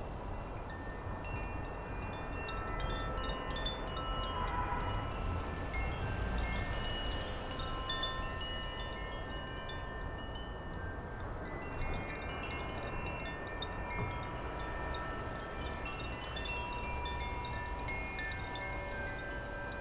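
Wind chimes ringing, many overlapping clear tones struck at irregular moments and ringing on, with wind rumbling on the microphone.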